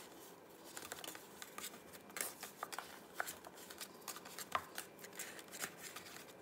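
Faint, irregular taps and soft rustles of hands pressing and tucking braided raisin bread dough into a metal baking pan.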